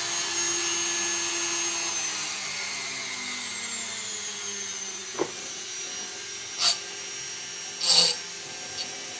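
Handheld rotary multitool running, its high whine sliding slowly down in pitch as the speed is turned down. Near the end come two short gritty bursts as the spinning bit touches the plastic battery box.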